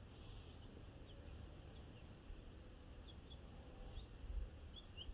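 Faint, scattered short high chirps of birds calling at a distance, over a low rumble that swells briefly about four seconds in.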